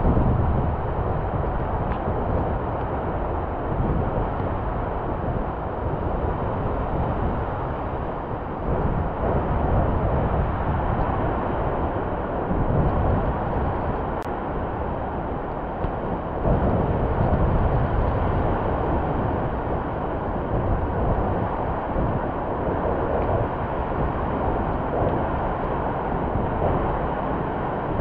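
Ocean surf breaking along the beach: a steady rush with heavy low rumble that swells and eases slowly, mixed with wind on the microphone.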